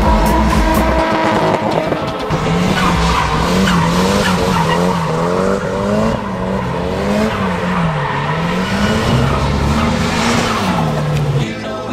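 A car engine revving up and down in repeated swells while its tyres squeal and skid through a drift. The revving starts about two seconds in and drops away just before the end.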